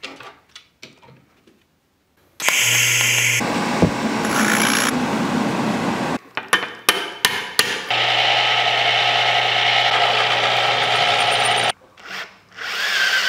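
Metal shop work on small stainless parts: a few light metal clicks, then a bench grinder with a cloth buffing wheel running under load, a steady hiss over the motor's hum, in two stretches of about four seconds split by a run of taps. Near the end a cordless drill spins up into the part.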